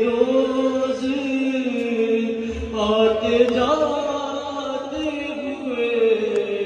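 A man's voice chanting a noha, a Shia lament, over a microphone and loudspeaker, holding long drawn-out notes that bend up and down in pitch about halfway through.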